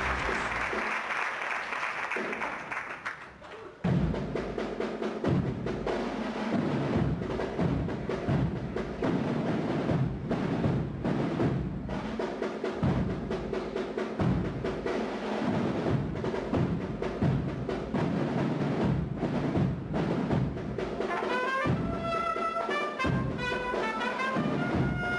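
Brass and drum band, an agrupación musical of trumpets, cornets, trombones and drums, playing a Holy Week processional march. A loud held chord fades over the first three seconds and breaks off briefly; then the drums beat a steady marching rhythm, and about 21 seconds in a high brass melody comes in over them.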